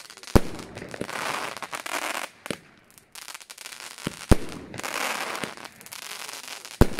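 Fireworks battery firing shot after shot: four sharp bangs about two seconds apart, with a rushing hiss between them as the glittering shells climb.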